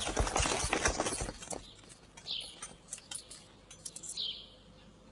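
Clatter of horse hooves and many running feet that stops about a second and a half in. After it comes a quiet background with two short bird chirps.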